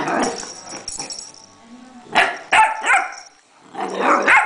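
Puppy barking at a pill bottle in play: one bark at the start, three quick barks near the middle, and another bark near the end.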